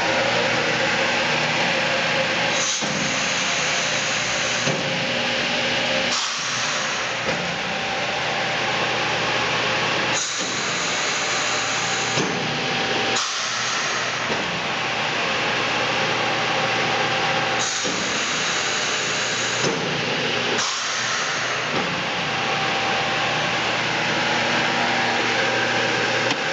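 Pistorius MN-302 double miter saw running steadily with its 14-inch blades spinning: a constant whir with a steady hum under it, described as really quiet.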